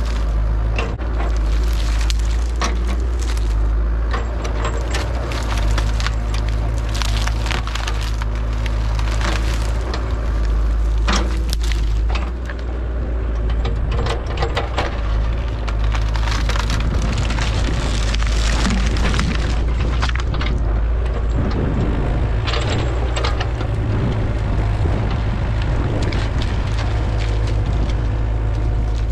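Mini excavator engine running steadily while juniper wood cracks and splinters, with many sharp snaps as limbs are broken off the tree.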